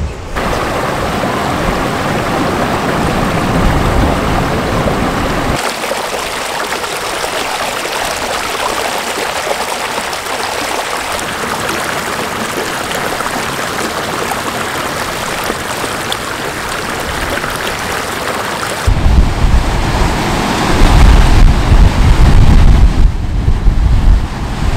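Ocean surf washing onto a beach, with wind blowing over the microphone. The wind buffets the microphone much harder in the last few seconds.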